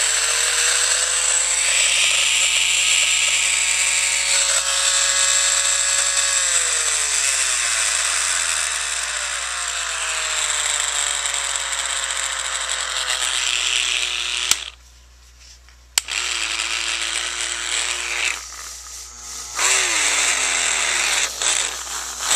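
Small handheld DC motor run off a converted treadmill's motor controller, whining as its speed is changed: the pitch rises, holds, then falls away. About two-thirds in it is switched off with a click for a second and a half and back on, and it dips and spins down again near the end.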